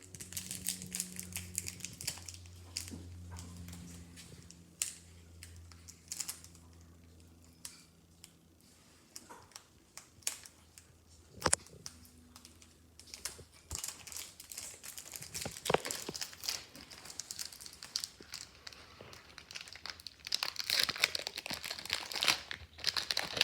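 Foil Pokémon card booster pack being handled and torn open: irregular crinkling with a few sharp crackles, densest near the end. A low steady hum runs under the first few seconds.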